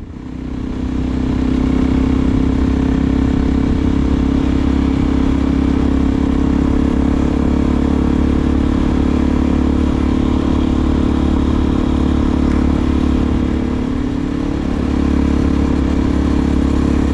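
Suzuki DR-Z400SM's single-cylinder four-stroke engine running through a Delkevic aftermarket exhaust at a steady cruise. About fourteen seconds in the revs drop briefly, then pick back up.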